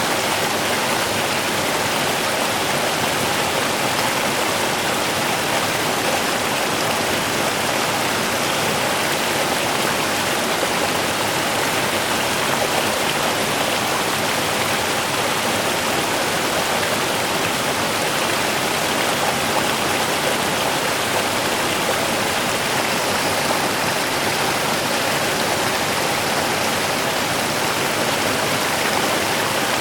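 Running water with a steady, even rush that never changes.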